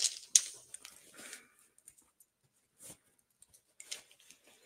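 Scattered light clicks and knocks of small objects being handled on a tabletop, with a sharper click about half a second in.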